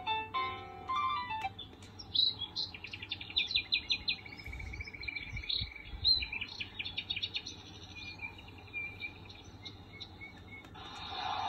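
A Meibeile baby crib mobile's speaker ends a short tinkling melody about a second and a half in, then plays its nature-sound mode: a run of bird chirps and tweets. Near the end it switches to a steady rushing noise.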